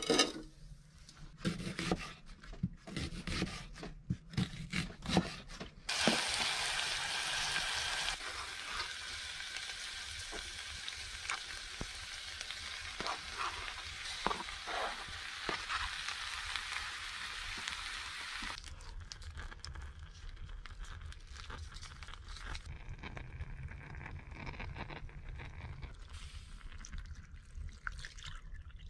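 Diced meat frying in a hot pot on a wood stove: a steady sizzle sets in suddenly about six seconds in and dies down about twelve seconds later. Before it come a few light knocks of pot and utensils.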